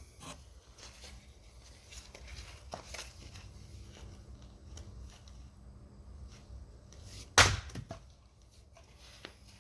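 An axe strikes wood once with a loud, sharp crack about seven seconds in, after a few faint knocks.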